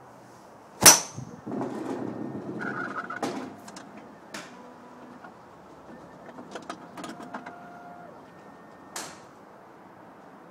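A golf club strikes a ball with a sharp crack about a second in, followed by a couple of seconds of mechanical clattering and rattling. Lighter clicks follow, and a second, weaker crack comes near the end.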